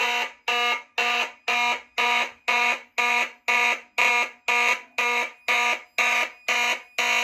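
Siemens fire alarm horn-strobes sounding in march time, about two sharp horn blasts a second, steady and even. This is the general alarm signal, set off by a manual pull station.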